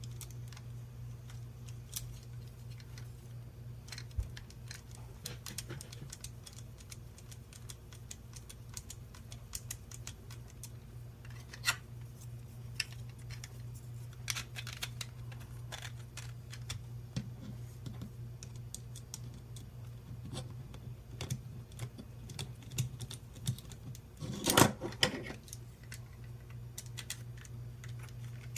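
Light clicks and scrapes of a small screwdriver and plastic parts being handled as screws are driven into a 3D-printed plastic extruder hub, with a louder clatter near the end, over a steady low hum.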